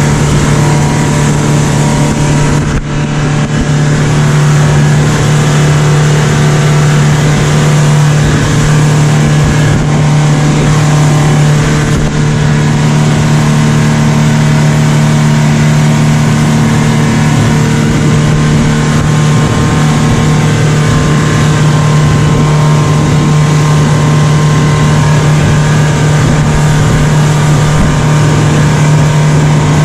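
Speedboat engine running loudly and steadily at a constant pitch under way, with a steady rushing noise over it.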